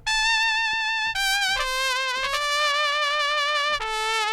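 Sampled mariachi trumpet from a brass SF2 SoundFont, played from a keyboard: a short phrase of about five held notes with a wide vibrato, stepping down in pitch overall.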